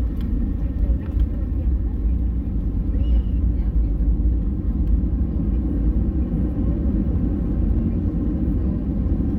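Steady low rumble inside the cabin of an Airbus A320 rolling out on the runway just after landing, as engine and wheel noise carry through the fuselage while the jet slows.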